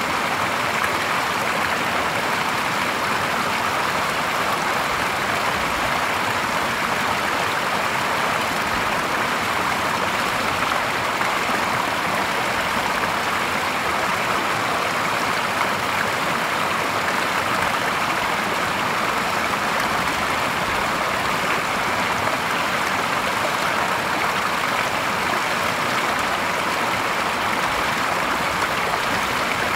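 Clear stream water spilling in a small cascade over a log into a shallow pool, a steady splashing rush that does not change.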